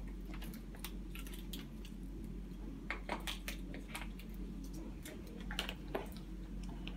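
Scattered light clicks and taps of stroller handlebar and brake-handle parts being handled and fitted together, over a steady low hum.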